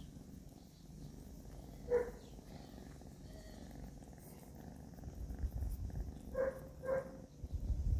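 Kitten purring as it is scratched under the chin, a low rumble that runs on throughout and grows stronger in the second half. Three short mews cut in, one about two seconds in and two close together near the end.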